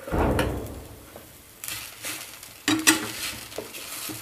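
Wooden spatula stirring grated beetroot, carrot and boiled potato in an aluminium kadai: a thud at the start, then scrapes and a few knocks against the pan, with a soft sizzling hiss.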